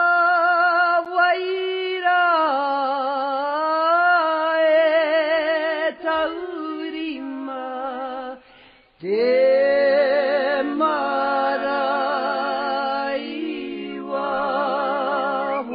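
Unaccompanied singing in long, slow notes with a wide vibrato. It breaks off briefly about eight and a half seconds in, then resumes.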